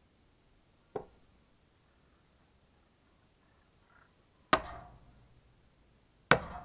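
Sledgehammer blows splitting a firewood log, probably onto a steel splitting wedge: a light tap about a second in, then two heavy, ringing strikes near the end, about two seconds apart.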